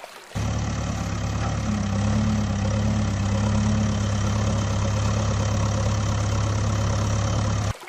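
A motor vehicle engine running steadily, likely dubbed in as a sound effect: it switches on abruptly just after the start and cuts off abruptly near the end.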